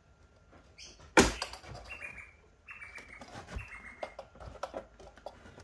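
A plastic trim clip snaps loose with one sharp, loud click about a second in, as the upholstered interior trim panel of a Mercedes SL R129 is pried free. Then comes a few seconds of scraping and rubbing as the panel is wiggled out, with a few lighter clicks near the end.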